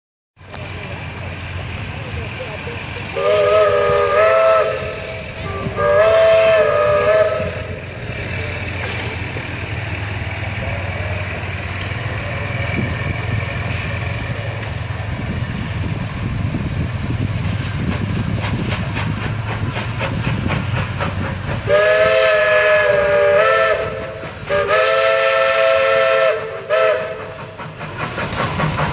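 Model 43 0-4-0 steam locomotive's whistle, blown in four blasts that sound several notes together: two about three seconds in and two more near the end. A steady low rumble runs between the blasts.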